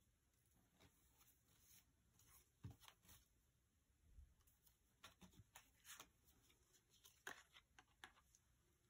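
Near silence: room tone with faint, scattered small clicks and taps.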